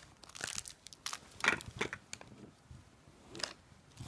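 A child's fingers crinkling and tugging at a plastic blind-bag wrapper that is hard to open, in a few short irregular rustles, the loudest about a second and a half in.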